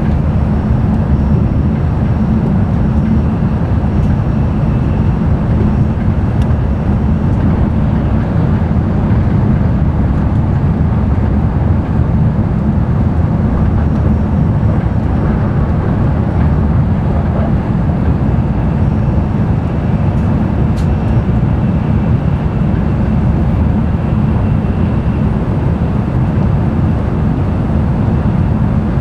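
Running noise of an N700-series Tokaido Shinkansen at speed, heard inside the passenger cabin: a steady, loud low rumble with a few faint ticks.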